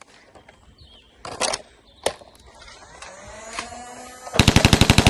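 A game's Nerf blaster sound effects: a couple of short reload clicks, then about four seconds in a loud burst of rapid automatic fire, a fast, even stream of shots.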